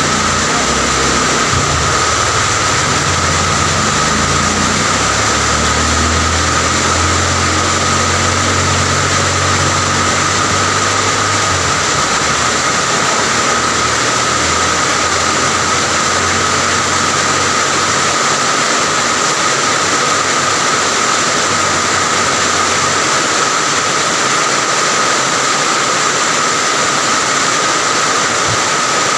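Steady rain falling, an even, unbroken hiss. A vehicle engine runs low underneath for about the first twelve seconds and then fades away.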